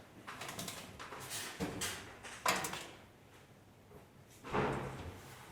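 A handful of short clunks and sliding scrapes from luggage and storage fittings being handled, the loudest about two and a half seconds in and another just before the end.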